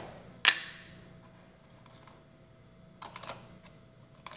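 Light clicks and knocks of kitchen utensils and plastic containers being handled on a countertop. The loudest knock comes about half a second in, and a quick cluster of small clicks comes about three seconds in, over a faint steady hum.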